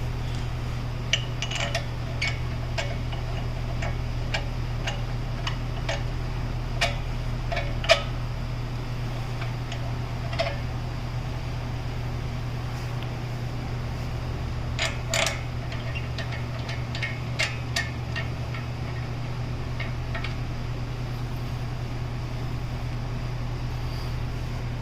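Bolts being handled and fitted into an aluminum wheel adapter on a car hub: scattered small metallic clicks and clinks, some ringing briefly, in short clusters with pauses between them. A steady low hum runs underneath.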